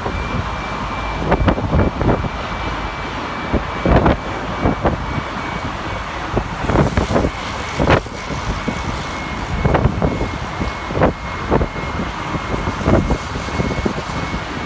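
City tour bus in motion: engine and road rumble with frequent irregular knocks and rattles, and a thin steady high tone over it.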